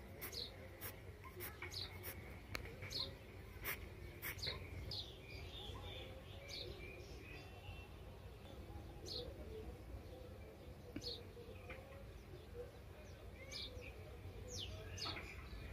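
Faint bird chirps: short falling notes repeated at irregular intervals, over a low steady hum and a few faint clicks.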